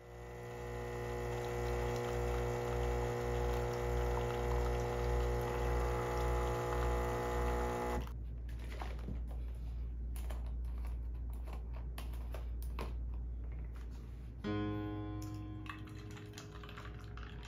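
Philips automatic espresso machine running with a pulsing hum for about eight seconds, then a run of small clicks and crackles, with background music coming in more clearly near the end.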